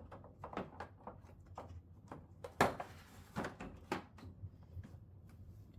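Irregular clicks and knocks of the plastic back casing of an old TV being pulled and pried at. The casing is still held by one missed screw. The loudest knock comes about two and a half seconds in.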